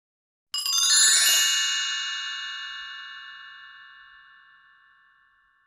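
A quick run of struck chime notes about half a second in, several clear tones ringing together and then fading out slowly over about five seconds.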